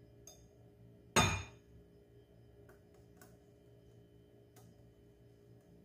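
A glass container clinks once against the rim of a glass mixing bowl about a second in, a sharp knock with a short ring. A few faint ticks follow.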